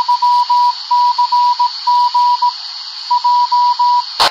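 Kenwood TH-F7 handheld radio's speaker playing a repeater's Morse code identification: a single high beep keyed in dots and dashes over steady hiss. It ends in a short burst of noise as the signal drops out near the end. This is a sign that the repaired antenna is reaching the repeater.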